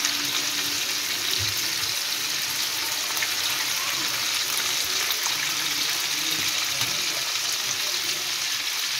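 Marinated chicken breast pieces shallow-frying in hot butter and oil in a pan: a steady sizzle with faint scattered pops.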